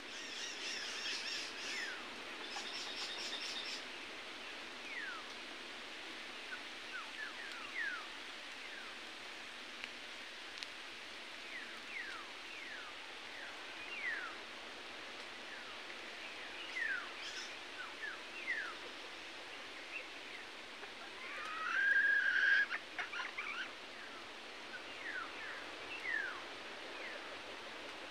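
Wild forest birds calling: many short, falling whistled notes scattered throughout, a rapid high trill in the first few seconds, and a louder, longer call with a held note about three quarters of the way through.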